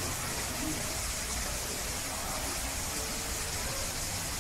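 Steady hissing background noise with a low rumble, and faint voices of people talking.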